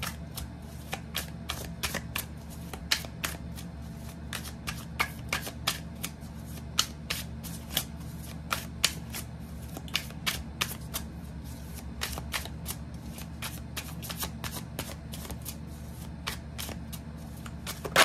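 Tarot deck being shuffled by hand: a continuous run of irregular soft clicks and flicks of the cards, several a second, over a faint steady low hum.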